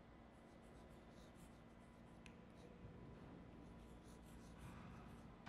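Faint scratching and tapping of chalk on a chalkboard as a word is written out in short strokes.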